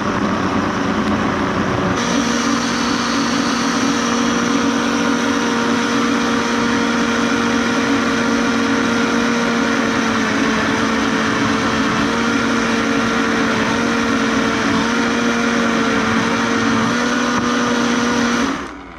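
Vitamix countertop blender motor running steadily, puréeing a thick avocado and tomatillo mixture into guacamole. Its pitch shifts about two seconds in, and it stops abruptly just before the end as it is switched off.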